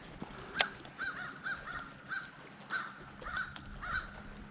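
A bird calling in a quick series of short, clipped calls, about two a second, with a single sharp click about half a second in.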